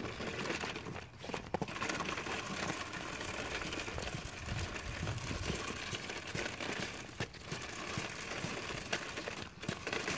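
Plastic toy snowplow truck pushed across gritty, icy pavement, its wheels and front plow blade scraping and crackling over sand and grit.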